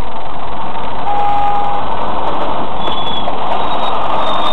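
Steady road and engine noise heard from inside a car in traffic, with a short steady tone sounding about a second in.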